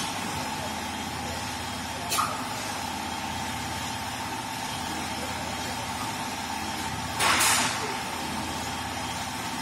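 Fiber laser tube cutting machine with automatic loading running with a steady hum and a high held tone. A short hiss of air comes about two seconds in, and a longer, louder hiss comes around seven seconds in.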